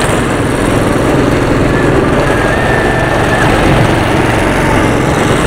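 Rental go-karts' small gasoline engines running at speed, heard from on board a kart with another kart running just ahead; a steady, loud engine drone mixed with hiss.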